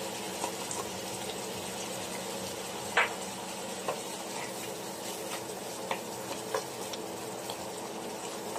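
Mushrooms and ham frying in butter in a metal pan with a steady sizzle, while a wooden spoon stirs them and now and then knocks against the pan. The sharpest knock comes about three seconds in.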